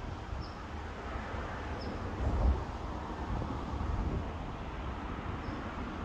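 Outdoor ambience: a steady low rumble that swells briefly about two and a half seconds in, with a short, high bird chirp repeating every second or so.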